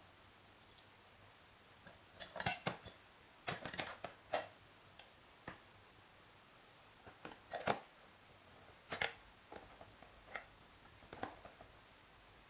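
Irregular light clicks and clinks, some in quick clusters, of toy truck parts, a paintbrush and a gripping tool knocking against each other and a plastic tub while the parts are scrubbed in liquid.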